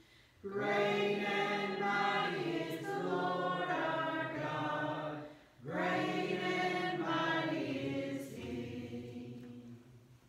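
A church congregation singing a hymn together in two long, held phrases. The second phrase fades away near the end.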